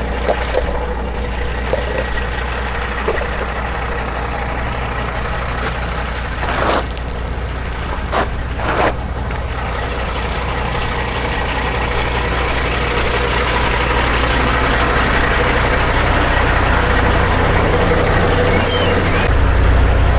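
Kenworth W900 semi truck's diesel engine running, heard from the cab, with a few short air hisses about seven and nine seconds in. The engine grows louder over the last several seconds.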